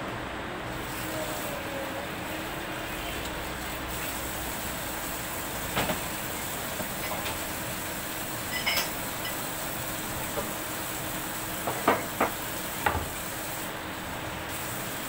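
Kitchen work sounds: a few sharp clinks and knocks of dishes and utensils at the sink and on a wooden cutting board, over a steady hiss. One knock comes about six seconds in, another near nine seconds, and three come close together near the end.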